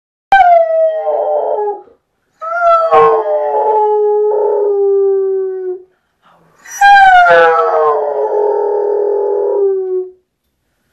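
A trail hound howling: three long howls, each starting high and sliding down in pitch, the second and third lasting about three seconds each. It is the distressed howling of a hound missing its owner.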